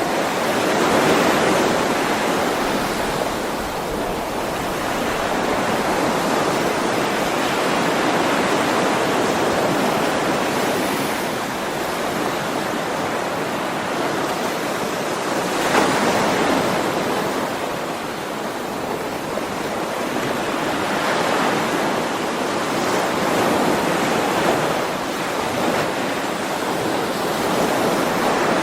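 Ocean waves breaking and washing on a shore, a continuous surf that swells and eases every few seconds, with stronger surges about a second in, about halfway through and near the end.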